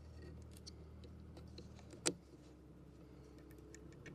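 Faint small clicks and plastic handling noises as wire connectors are pushed onto the back of a van door mirror glass, with one sharper click about two seconds in. A low steady hum underneath.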